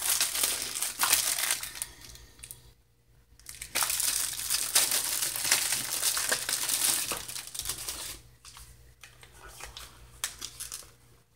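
Clear plastic wrapping crinkling and tearing as it is peeled off a small gift box by hand, in two main spells with a short pause about three seconds in, fading to lighter rustling near the end.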